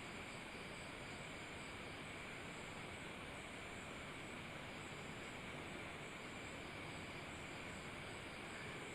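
Steady faint hiss with a faint high steady tone, and no distinct knocks or other events.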